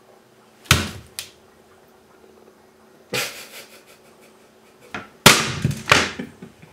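A large kitchen knife chopping through an apple and knocking onto a plastic cutting board: six sharp chops, the loudest about two-thirds of the way through.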